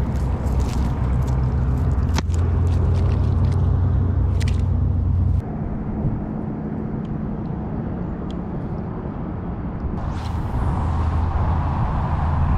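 Steady rumble of water pouring and churning at a sewer outfall, with sharp clicks and rustles of a cast net being handled over the first few seconds. The background changes abruptly about five seconds in, and a brighter rush of water rises near the end.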